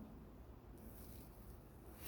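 Near silence: faint, steady outdoor background noise with a low rumble.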